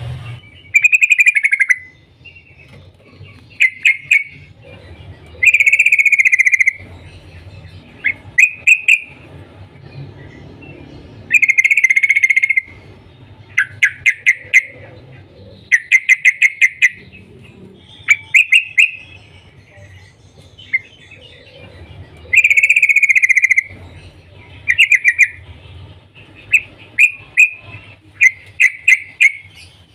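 Yellow-vented bulbul giving its chattering 'cuk cuk' calls, loud and close, repeated about every two seconds. Some are quick runs of separate notes and some are longer phrases about a second long.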